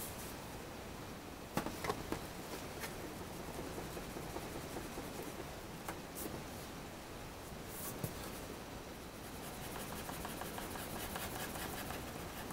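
Pencil scratching on drawing paper, turning into fast, close-set hatching strokes in the last few seconds, with a few sharp knocks of things handled on the desk early on.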